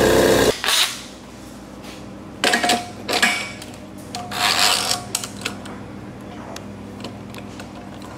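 A loud car engine running cuts off abruptly about half a second in. Then come a few short bursts of metal clinking and scraping as a clamping cone and nut are fitted onto the threaded centre post of a Corghi tire changer, through the centre bore of a chrome wheel.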